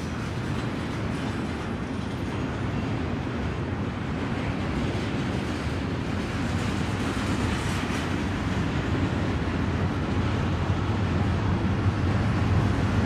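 Union Pacific double-stack container train rolling past with steady wheel-on-rail noise from the well cars. Over the last few seconds it grows louder, with a stronger low rumble as the mid-train distributed-power diesel locomotives approach.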